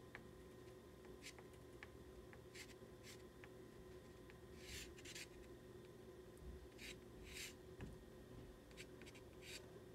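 Faint scratching of a pastel stick stroked across paper, in short irregular strokes, the strongest about five seconds in and again around seven seconds, over a faint steady hum.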